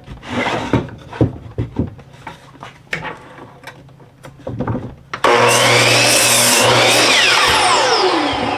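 Knocks and taps as a board is handled and set against the saw, then about five seconds in a miter saw starts and cuts through a 2x6 board, its motor whine wavering in pitch under load. Near the end the blade winds down with a steadily falling whine.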